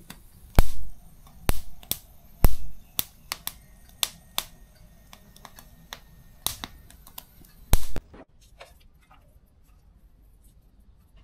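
Irregular sharp clicks and knocks of kitchen utensils during food preparation, about a dozen in the first eight seconds. After that, only a few faint ticks.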